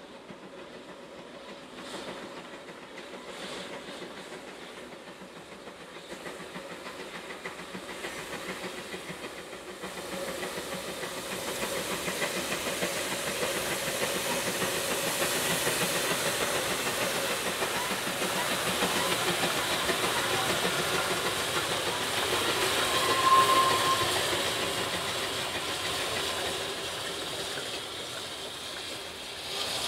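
Narrow-gauge steam train with two locomotives passing at close range. Their exhaust and steam hiss grow louder as they approach and go by, then the carriage wheels clatter over the rail joints. A brief high note sounds about three-quarters of the way through.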